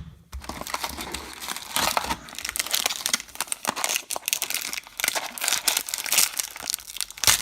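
Wrapper of a 2022 Topps Update baseball card pack crinkling and tearing as it is opened and handled, a dense run of crackles with a sharper, louder crackle near the end.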